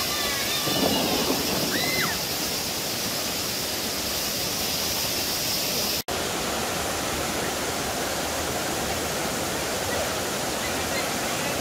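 Whitewater of a river rushing down a smooth rock slab (a natural rock waterslide), a steady, even rush, broken for an instant about six seconds in where the sound cuts out.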